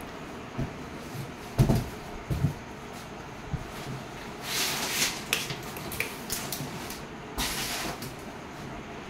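Packing for a Blue Star split air conditioner's indoor unit being handled: the cardboard carton and the foam-capped, plastic-wrapped unit bump and slide. There are a couple of low thumps about two seconds in, then rustling scrapes around the middle and again near the end.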